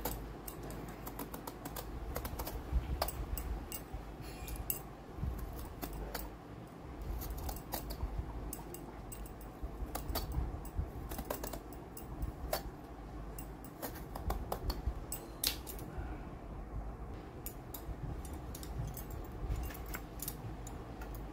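Hand-held vegetable peeler scraping the skin off a bottle gourd: a run of short, irregular scraping clicks, one for each stroke of the blade.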